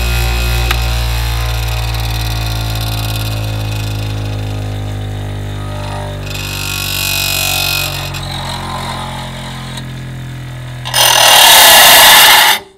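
Bench grinder motor humming steadily as a spade drill bit is ground against its stone wheel: a short hiss of metal on stone about six seconds in, then a louder grind of about two seconds near the end that stops abruptly.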